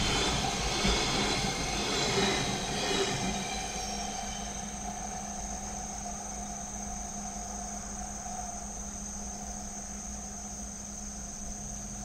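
The last container wagons of a freight train roll over the level crossing, the rumble fading out about four seconds in. After it, steady insect chirring of crickets is left, with a low steady hum.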